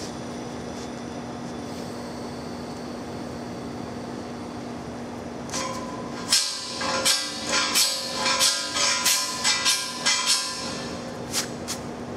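Paint scraper scraping the black adhesive cover off a metal pipe: a quick run of about a dozen strokes, about three a second, starting about halfway through and lasting some five seconds, then two short scrapes. A steady low hum runs underneath.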